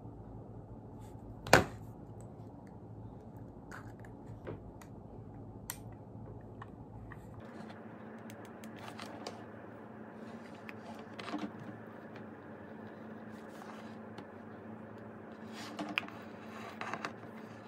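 Quiet room tone with scattered light clicks and taps from handling a hair-oil bottle and a small hair straightener; one sharp click about a second and a half in is the loudest.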